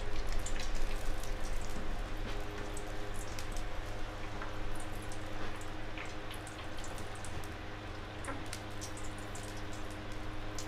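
Hot cooking oil crackling and spitting in a pan on the stove, with scattered light pops over a steady low hum.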